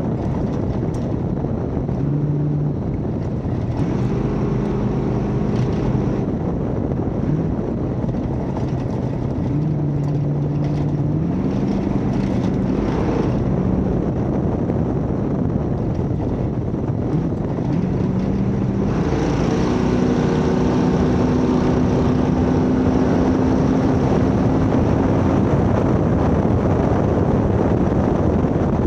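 1972 Ford Bronco race truck driving off-road at speed: the engine runs under load over heavy wind and road noise, its note stepping up and down in pitch several times and holding steady for a stretch after about twenty seconds.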